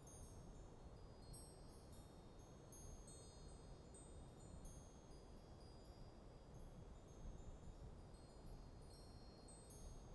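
Wind chimes ringing faintly and irregularly in a light breeze, many short high notes overlapping, over a soft steady rush of wind.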